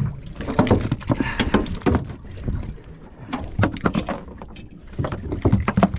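Irregular knocks, clatters and thumps of a freshly landed school mackerel being handled on a boat's deck and laid on a plastic ice box lid, in two busy clusters with a quieter gap around the middle.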